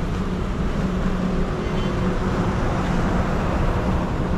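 Steady street traffic noise with a low, even engine hum from a vehicle running nearby.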